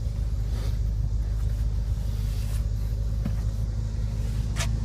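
A few sharp clicks and a clunk near the end as the rear-seat release levers are pulled and the rear seatbacks fold down, over a steady low rumble.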